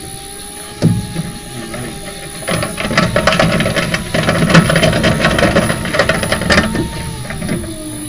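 A failed CV joint on the front drive axle of a 2018 Nissan LEAF, wheels spinning off the ground in drive, popping and clicking rapidly, densest from about two and a half seconds in, over a steady electric-drive whine that dips in pitch near the end. The popping is the sign of a worn-out CV joint that has lost its boot and corroded.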